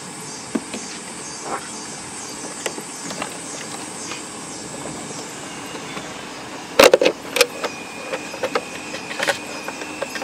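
Plastic clicks and clatter as the air filter housing cover on an Audi A5 is worked loose and lifted off the intake, with a cluster of loud knocks about seven seconds in.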